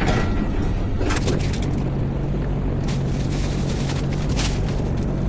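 Kitchen stovetop cooking: a steady low rumbling hum with a low tone that comes in about a second in, and several short bursts of hiss and clatter from the frying pan and utensils.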